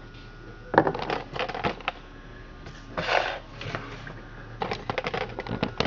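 Clicks, taps and light rattles of hands handling the Stihl MS 460 Magnum chainsaw as it sits switched off, starting about a second in, with a brief scraping rustle around three seconds in and a quick run of clicks near the end.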